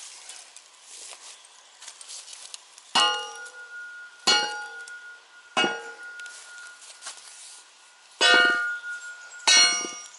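A steel tool struck five times against a very hard, long-dead red box eucalyptus log, each blow a sharp metallic clang with a ringing tone after it. The blows bounce off the dense timber and leave no impression in it.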